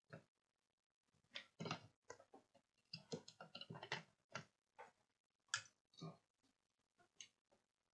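Faint, irregular clicks and taps of hands handling a circuit board in a holder and a soldering iron, clustered in a busy run about a second and a half in and again later.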